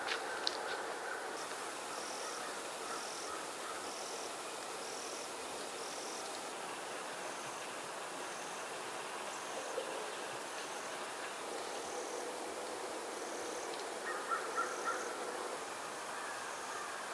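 Woodland ambience: a steady hiss under a short, high chirp that repeats about once a second, with a few sharp clicks, a cluster of them near the end.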